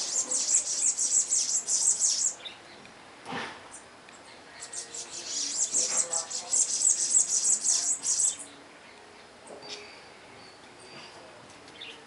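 House wren (curruíra) singing: two songs of rapid, high chattering notes, the first lasting about two seconds, the second starting about five seconds in and lasting about three and a half.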